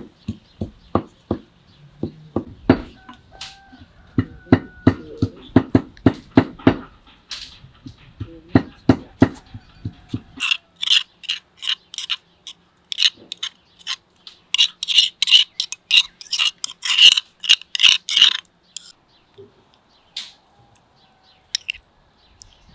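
Pestle pounding garlic and greens in a stone mortar, steady dull knocks about three a second. About ten seconds in they give way to sharper, brighter clicks of a metal spoon scraping and tapping inside the stone mortar, then only a few faint clicks near the end.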